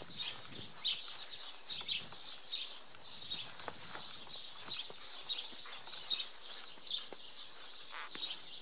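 Birds chirping, short high chirps repeating about once or twice a second.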